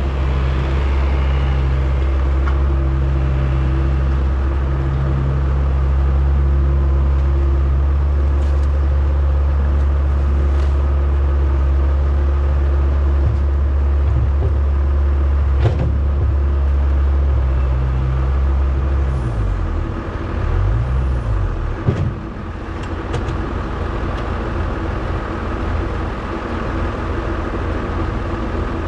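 Diesel engine of a farm machine running steadily under load. About two-thirds through, the engine note drops and turns uneven, and sharp clanks come once near the middle and once shortly after the change.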